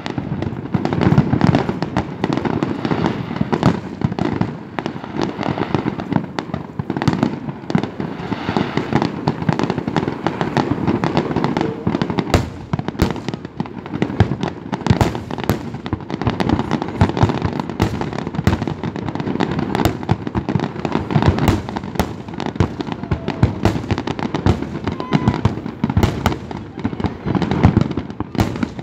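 Fireworks going off continuously, a dense run of bangs and crackling with many sharp reports overlapping one another.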